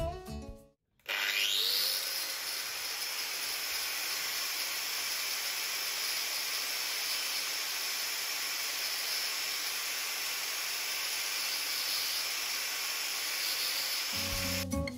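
Handheld angle grinder spinning up with a rising whine about a second in, then running steadily at full speed while its disc slices through a banana. It cuts off near the end.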